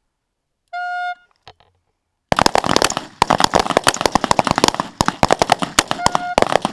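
The start horn sounds once, a steady tone of about half a second. About a second later a line of rifles opens fire, and many shots overlap in a rapid, uneven string until the end.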